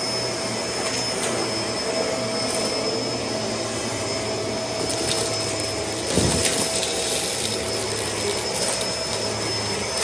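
Kenmore DU2001 bagless upright vacuum cleaner running steadily with a constant whine while it sucks up confetti, with small ticks of pieces going up the machine. A brief louder thump comes about six seconds in.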